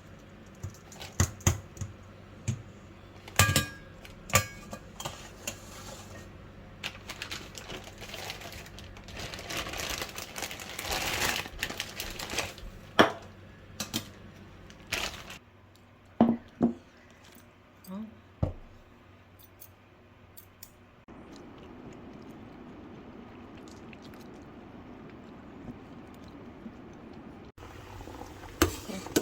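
Kitchen work sounds: scattered clinks and knocks of dishes and utensils, a stretch of rushing noise in the middle, a few dull thuds, and then a steady hiss through the last third that leads into a pot boiling.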